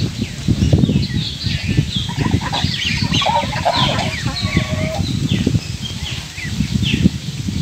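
Domestic geese giving short calls, the densest cluster a little past the middle, over a steady low rumble, with short, high, falling chirps scattered through.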